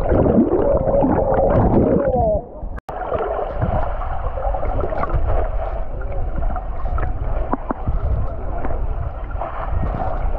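Muffled underwater sound picked up by a camera held under the sea while snorkeling: water sloshing and gurgling with wavering low tones for the first two seconds, then a brief dropout about two and a half seconds in, after which a steady muffled water rush continues.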